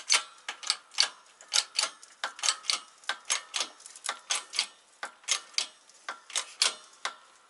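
Hydraulic bottle jack of a Harbor Freight shop press being pumped by its handle: a quick run of sharp clicks, often in pairs, about four a second, stopping near the end. The jack is building pressure to press an old bushing out of a VW Mk2 control arm.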